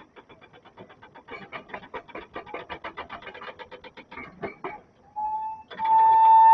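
Volcano warning siren starting up near the end: a short steady tone, a brief break, then a loud, steady, held siren tone. Before it come several seconds of fast, faint rattling clicks.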